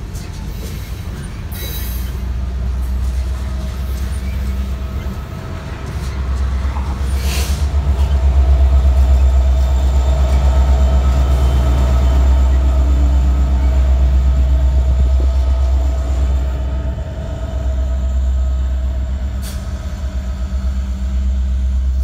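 Kansas City Southern freight train rolling past close by: grain hopper cars running over the rails. In the middle an EMD SD70ACe diesel locomotive, working as a mid-train distributed power unit, goes by, and its engine is a loud low rumble. Hopper cars follow it, the rumble easing toward the end.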